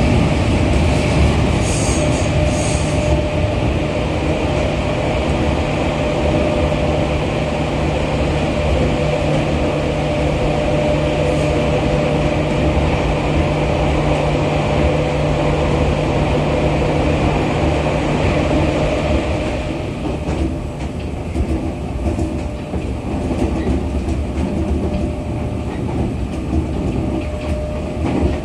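Running noise heard inside a 211 series electric train's motor car: a steady rumble and hum of wheels, rails and traction gear, echoing while the train runs through a tunnel. About twenty seconds in the hum drops away and the noise grows lighter and quieter as the train comes out into the open. A brief high squeak sounds near the start.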